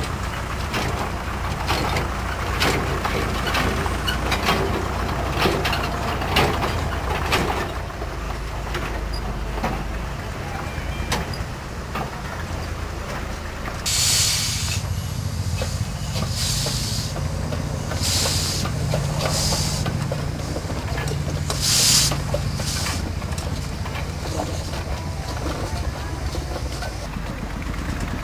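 Loaded narrow-gauge clay wagons rolling, rumbling, with wheels clicking and clanking over the rail joints. From about halfway, a small narrow-gauge steam locomotive works nearby: loud hisses of steam come a second or two apart over a steady low hum.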